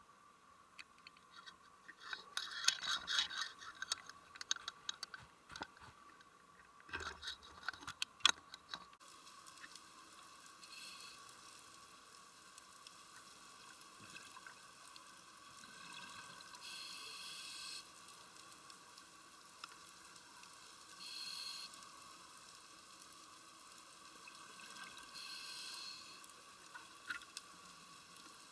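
Underwater sound through a camera's dive housing: a scuba diver's exhaled bubbles rising in bursts about every four to five seconds over a steady faint tone. Before that, in the first several seconds, a run of knocks and rustling handling noise.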